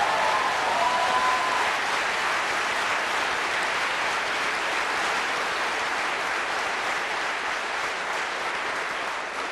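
Audience applauding in a large hall, a dense steady clapping that eases off slowly toward the end.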